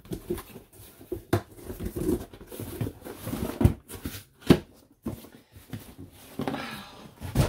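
Products being tossed back into a cardboard subscription box: irregular knocks, clatters and rustling of packaging, with one sharp knock about four and a half seconds in and a longer rustle near the end.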